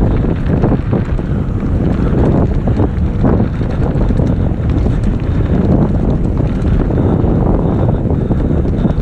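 Loud wind buffeting the microphone of a camera carried on a mountain bike descending at speed, mixed with a constant irregular clatter and rumble of the bike over rough ground.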